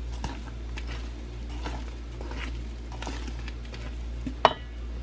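Stirring and scraping a thick, wet mix of pollen substitute, sugar and sugar syrup being worked into a bee patty, in irregular strokes. A sharp knock about four and a half seconds in.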